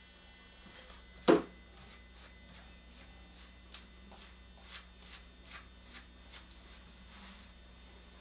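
Slicker brush strokes through a Shih Tzu's long coat: soft, scratchy strokes about once or twice a second, with one sharp knock about a second in.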